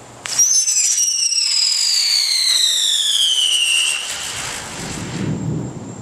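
Whistling firework going off with a sharp start, then one loud whistle with overtones falling steadily in pitch for about three and a half seconds before it stops. A low rumble follows near the end.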